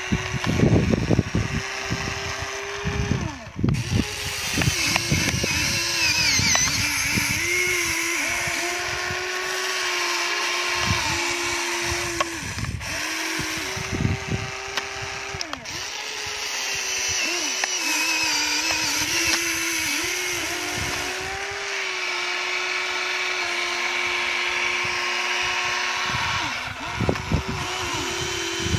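Electric motors of a Huina radio-controlled model excavator whining steadily as it digs and swings. The pitch dips and slides again and again as the boom, arm and bucket move under load.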